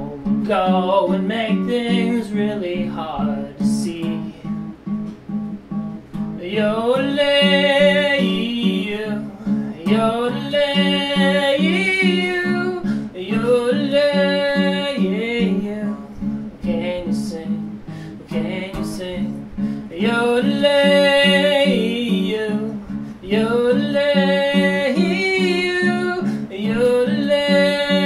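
Acoustic guitar strummed in a steady rhythm while a man sings lines of a song over it, with a few seconds of guitar alone between some of the sung phrases.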